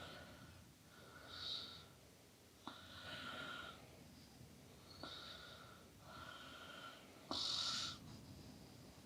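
Hands stroking and rubbing over bare skin during a back massage: a series of soft swishes, each lasting about half a second to a second, some beginning with a light click. The loudest comes near the end.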